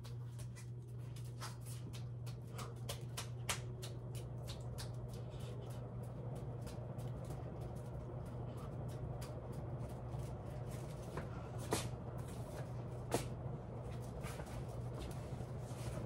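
Ceiling fan running at speed: a steady low motor hum under a light, rapid ticking, with two sharper clicks near the end.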